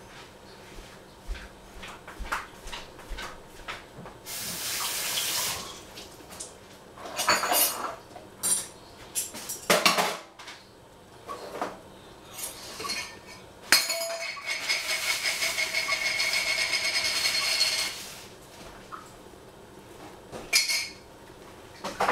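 Kitchen clatter of dishes, pots and utensils clinking and knocking, with a tap running briefly about four seconds in and again for about four seconds from around the middle.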